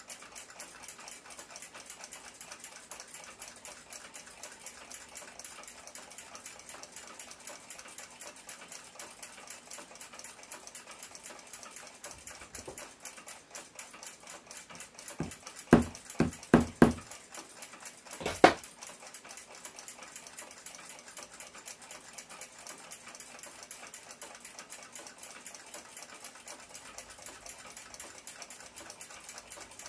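Small hammer tapping the end of a clock's steel gong rod into its brass mounting block: three quick taps about midway, then a fourth a couple of seconds later. A faint rapid ticking runs underneath.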